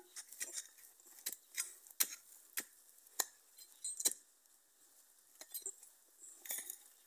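A short-handled hand tool chopping into dry, stony soil: about a dozen light, sharp knocks, unevenly spaced, with a clink where it hits stones.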